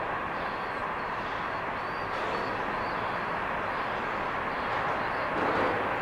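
Train of empty ballast hopper cars rolling past: steel wheels on the rails make a steady noise.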